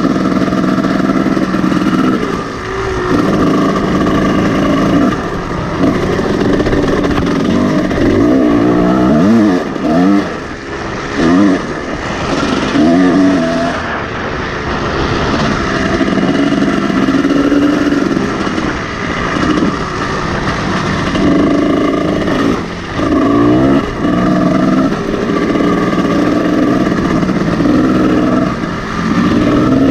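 Kawasaki KX250 two-stroke dirt bike engine ridden on a trail, its pitch rising and falling as the throttle is opened and closed. There are several quick up-and-down revs about ten seconds in and again a little past twenty seconds.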